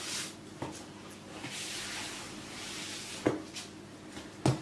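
Gloved hands brushing loose flour off a sheet of dough and the table, a soft swishing, with a sharp tap about three seconds in and a louder knock near the end as the hands press the dough down.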